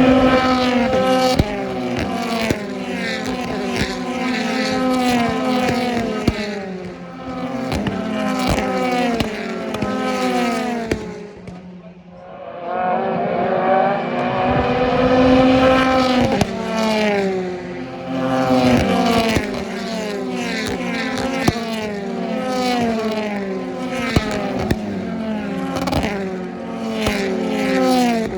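A field of BTCC touring cars racing at full throttle, many engines at once revving up through the gears and dropping back, with sharp cracks at the gear changes. The sound eases briefly about 12 seconds in, then builds again as more cars come through.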